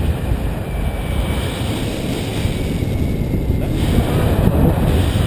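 Wind rushing over the microphone of a camera on a paraglider in flight: a steady low rumble of airflow with no break.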